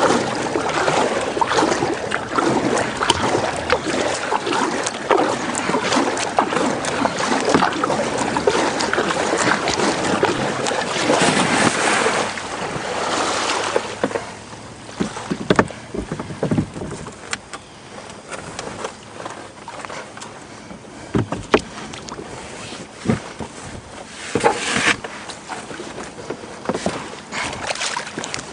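A plastic kayak driven onto a riverbank to land: for about fourteen seconds a dense, rough rushing noise full of small clicks, then it turns quieter with scattered knocks and bumps against the hull.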